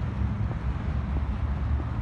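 Wind buffeting the phone's microphone, a low fluctuating rumble, over faint outdoor city background.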